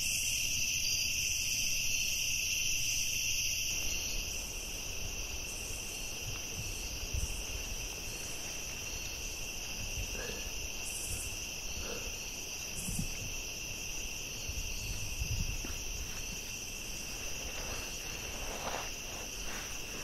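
Steady night chorus of crickets, a continuous high-pitched trilling. Faint rustles of dry leaves come in the second half as someone shifts on the forest floor.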